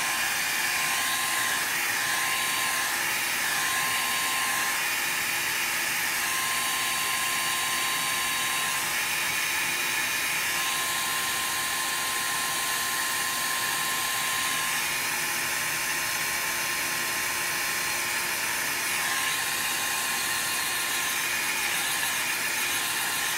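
Handheld heat gun running steadily, blowing hot air to dry a drop of ink. A constant whine from its fan motor sits over the rush of air.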